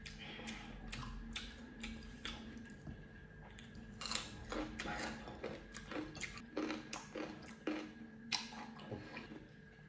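Mouth sounds of eating close to the microphone: chewing, then a crisp bite into a raw cucumber slice about four seconds in, followed by crunching as it is chewed, roughly two crunches a second.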